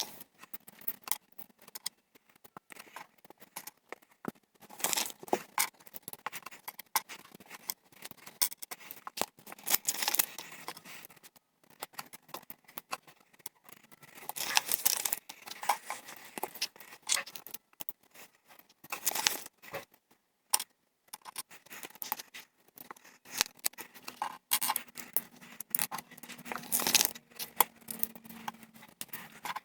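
Plastic LEGO pieces clicking and clattering as they are handled and pressed together, with several spells of rustling.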